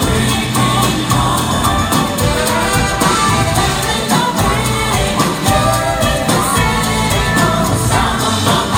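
A live band playing a pop ballad with singing, heard from the audience in a concert hall.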